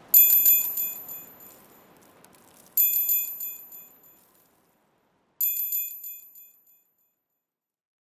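End-of-countdown timer alert: a bright, high bell chime rung three times, about two and a half seconds apart. Each ring is a quick shimmer of strikes that dies away over about a second and a half. A soft background hiss fades out under the first ring.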